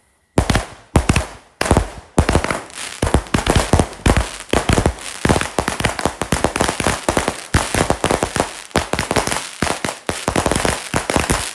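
Consumer firework cakes firing: a few separate launches about a second apart at first, then from about two seconds in a rapid, nearly continuous volley of shots and bursts.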